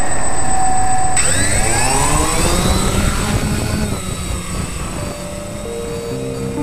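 Mariner quadcopter's electric motors and propellers spinning up for takeoff: a whine that climbs steadily in pitch from about a second in for about two seconds over the rush of rotor wash, then eases off. Background music comes in faintly near the end.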